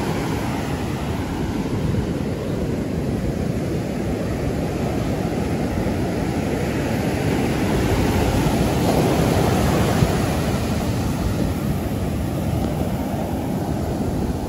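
Ocean surf breaking and washing up the beach, a steady rush that swells louder about eight seconds in, with wind buffeting the microphone.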